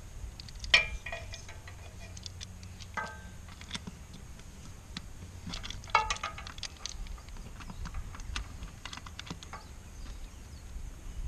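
Scattered small clicks and taps of plastic and metal as a bullet security camera is handled and fitted onto its wall mount, the loudest clicks about a second in and about six seconds in, over a steady low rumble.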